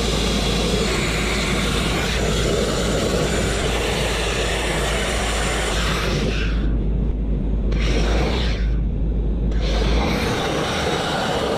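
Abrasive grit blasting: compressed air and grit rushing out of a hand-held blast nozzle against a steel truck frame, a loud steady hiss over a low rumble. A little past the middle the hiss cuts out twice, each time for about a second, while the rumble carries on.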